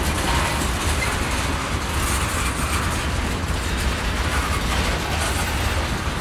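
Freight train cars, covered hoppers and a tank car, rolling past: a steady low rumble of steel wheels on the rails.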